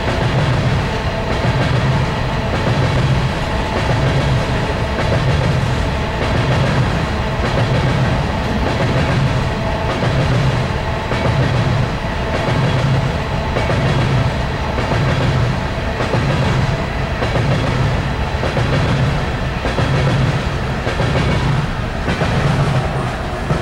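Empty coal hopper cars of a BNSF unit coal train rolling past, with a steady rumble and a rhythmic clickety-clack of the wheels over the rail joints, repeating roughly once a second.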